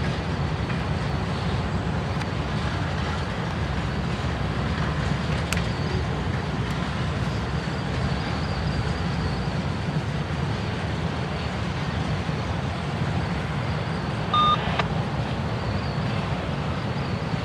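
Freight train passing: two GE diesel-electric locomotives, an AC44C6M rebuild and a C44-9W, with a steady low rumble that carries on as covered hoppers and tank cars roll by. A short, high beep sounds about fourteen seconds in.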